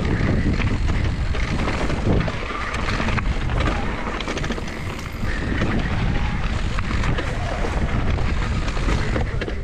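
Mountain bike riding fast over a rough dirt and rock-slab trail: tyre rumble with frequent rattles and clicks from the bike, under strong wind noise on the microphone.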